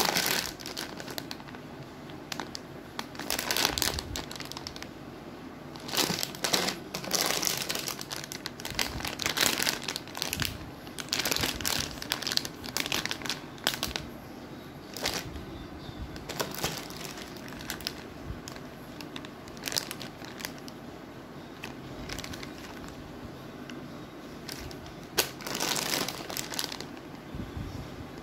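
Clear plastic bags crinkling in irregular bursts as they are picked up and handled, with plastic play-dough tools and cutters packed inside.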